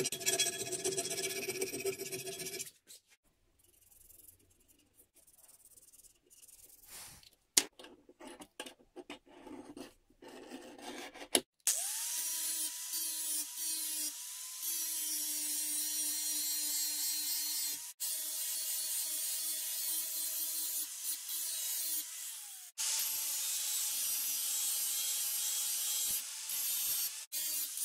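A round metal file rasps in short strokes inside a hole in a hard steel cleaver blade, followed by a few handling clicks. About twelve seconds in, an angle grinder spins up with a rising whine and grinds the blade's edge with a steady whine and hiss. It cuts out briefly twice and then carries on at a slightly lower pitch.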